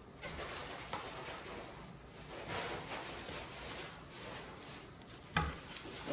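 Chef's knife slicing through a kimbap roll on a wooden cutting board: soft repeated sawing strokes through the seaweed wrap and rice, with one sharp knock of the blade on the board near the end.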